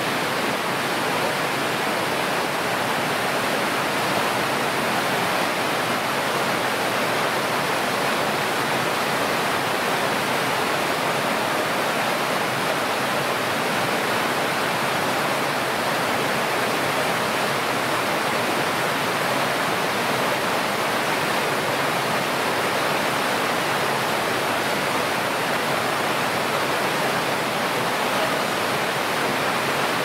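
Stream water flowing steadily, a loud even rush with no breaks.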